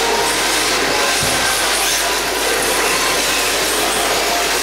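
Rear-wheel-drive RC drift cars running and sliding on a polished indoor track: a steady mechanical whirr and tyre noise over the hall's din, with a low thump about a second in.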